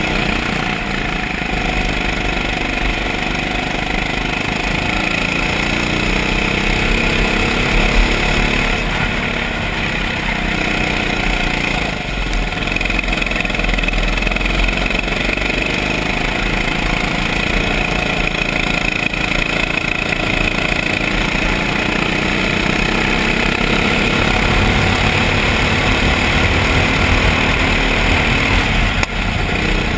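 Kart engine heard from the driver's seat, running at speed, its note rising and falling as the driver accelerates and lifts through the corners.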